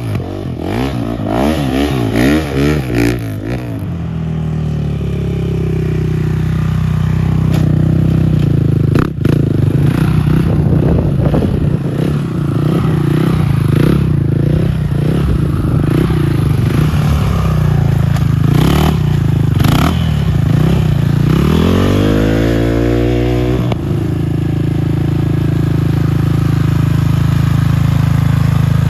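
Stunt motorcycle engine under throttle during wheelies, the revs wavering quickly at first, then held steady for long stretches. About three quarters of the way through the revs climb sharply and cut off suddenly before settling back to a steady note.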